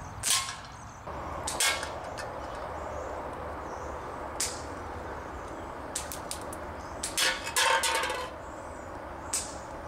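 Scattered sharp clicks and snaps, several in quick succession near the end, over a steady low rumble of outdoor background noise.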